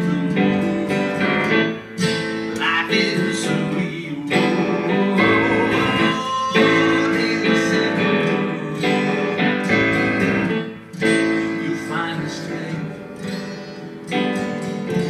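Electronic keyboard playing an instrumental passage of chords with a melody line over them, with no singing.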